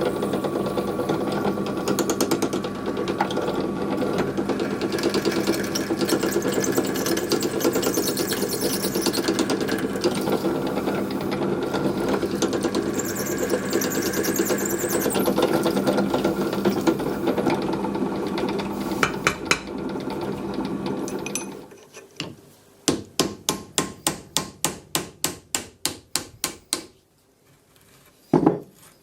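A small motor-driven tool runs steadily with a constant whir, then stops about twenty seconds in. A quick run of evenly spaced sharp taps follows, about three a second, like a hammer striking metal, then two more taps near the end.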